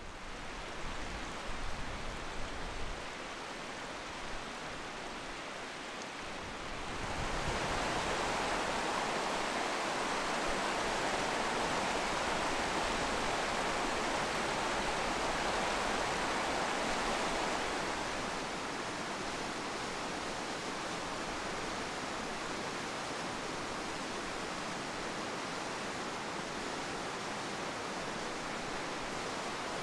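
Mountain stream rushing over rocks: a steady hiss of running water that grows louder about seven seconds in and eases back a little after about eighteen seconds.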